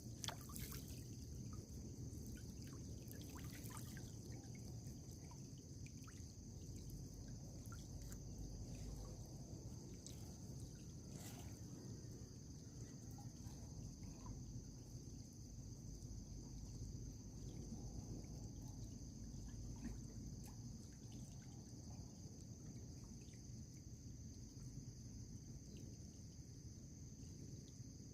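Steady high trilling of night insects over a low rush of river water, with a few drips and small splashes, most of them in the first few seconds and one near the middle.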